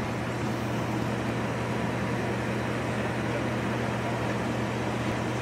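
D11H diesel locomotive's engine running with a steady drone as it pulls a freight train toward the station.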